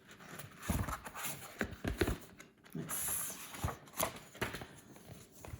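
Irregular soft knocks and clicks with a brief paper rustle: a picture book being handled and opened, its pages turned.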